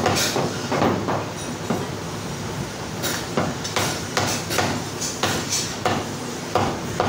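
Meat cleavers chopping mutton leg on thick wooden chopping blocks: a fast, uneven run of sharp chops, several strokes a second at times, with more than one cleaver at work.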